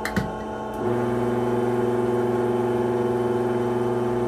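Electric espresso grinder motor running with no beans in it, a steady even hum that starts about a second in. A short click comes just before it.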